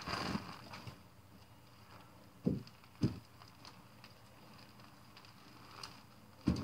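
Manual wheelchair moving about on concrete, with two short dull thuds about half a second apart near the middle and another near the end.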